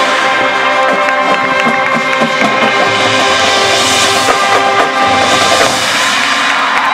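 High school marching band playing: brass holding sustained chords over the drumline's hits.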